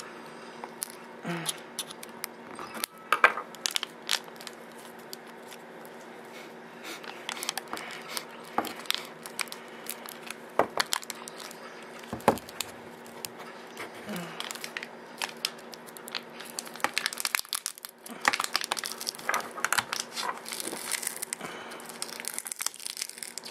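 An HP Stream 7 tablet's foil-wrapped lithium-ion battery is being pried and peeled off the adhesive that holds it to the chassis, crinkling and crackling with scattered sharp clicks, thickest near the end. The battery is bending and warping as it is forced out. A faint steady hum runs underneath.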